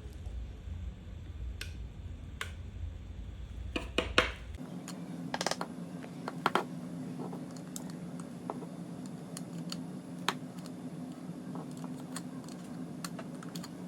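Light, irregular clicks and scratches of metal tweezers against a hair dryer's plastic intake grille as lint is picked out. A low steady hum comes in about four and a half seconds in.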